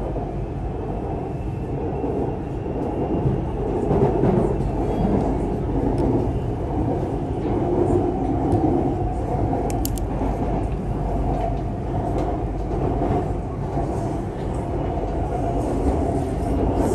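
BTS Skytrain car running along its elevated track, heard from inside the cabin: a steady, low running noise of wheels and motors.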